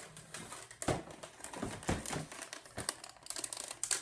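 Handling noise from a large plastic Nerf blaster being picked up and moved close to the microphone: irregular knocks and plastic clicks, with a quick run of clicks near the end, over clothing rustle.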